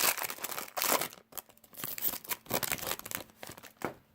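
Foil wrapper of a Bowman Chrome baseball card pack crinkling and tearing as it is ripped open, a run of crackles and rustles that stops near the end.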